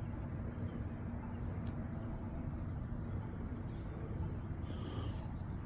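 Steady low outdoor background rumble, with a few faint short higher-pitched sounds about five seconds in.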